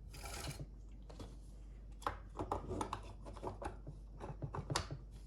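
Chainsaw parts being handled while a guide bar and chain are fitted: a brief scraping rub at the start, then a run of small irregular clicks and taps.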